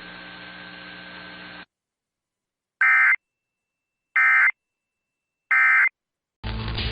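Three short, identical buzzy bursts of EAS digital data, the end-of-message code that closes an alert, about a second apart. Before them a steady radio hiss cuts off to silence, and just before the end a new noisy recording starts.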